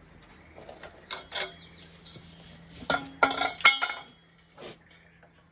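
Metal clanking and ringing as a box-end wrench, extended with a pipe, is forced on a rusty exhaust-manifold nut and gives way: its ring spreads open under the load and the wrench clatters against the manifold. A few lighter clanks about a second in, the loudest cluster of clanks about three seconds in, and one small knock near the end.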